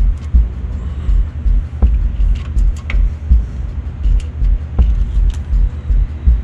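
Torque wrench and ratchet working the intake manifold bolts of a Dodge Magnum V8, tightening them to 60 inch-pounds, with scattered light metal clicks. Under it is a loud, uneven low rumble.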